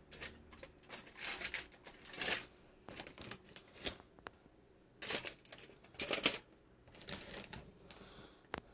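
Aluminium foil lining an air fryer basket crinkling and rustling as chicken nuggets are pushed around on it, in irregular bursts with a few light clicks.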